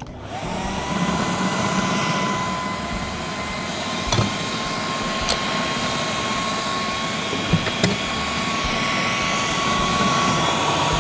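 Electric food processor running steadily, its motor giving a high whine that creeps slightly upward in pitch, as it chops tomatoes, red onion, garlic, chili and herbs into a chunky sauce. A few brief knocks sound over it.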